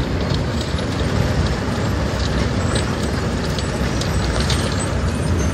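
Wirtgen W100 CFi cold planer milling the road surface, its diesel running steadily under load while milled asphalt pours off its conveyor into a tipper truck's body, with many scattered sharp clicks and rattles from the falling chunks.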